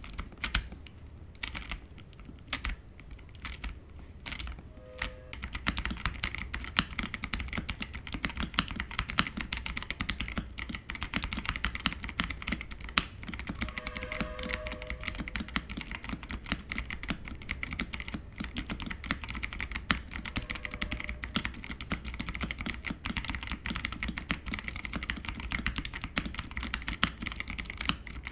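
Xinmeng X87 gasket-mounted mechanical keyboard with Outemu Brown switches being typed on. A few separate keystrokes come in the first five seconds, then steady, fast typing with both hands.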